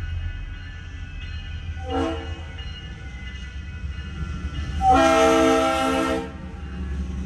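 BNSF diesel freight locomotive's air horn sounding for a grade crossing: one short blast about two seconds in, then a longer, louder blast of about a second and a half as the locomotive reaches the crossing, over the low, steady rumble of the approaching train.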